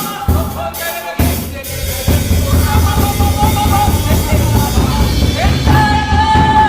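Live worship band playing with a drum kit beating steadily under sustained keyboard chords. The band drops back briefly about a second in, then comes in fuller.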